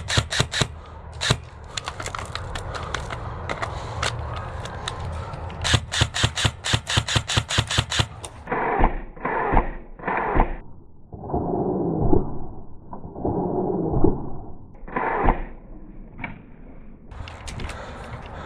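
Airsoft guns firing: scattered single shots, then a rapid full-auto burst of about eight shots a second lasting around two seconds. This is followed by several seconds of duller, muffled knocking and rustling.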